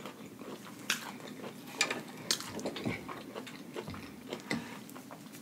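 Close-up mouth sounds of chewing Flamin' Hot Cheeto-crusted fried food, with a handful of sharp crunches and wet clicks scattered through.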